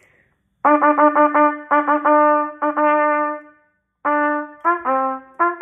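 Solo trumpet playing crisply tongued notes: four quick repeated notes on one pitch, then longer held notes on the same pitch, then from about four seconds in a figure that drops to a lower note and back. It is the practice rhythm for the dotted-sixteenth figure: four sixteenths, an eighth, two sixteenths, then the dotted sixteenth.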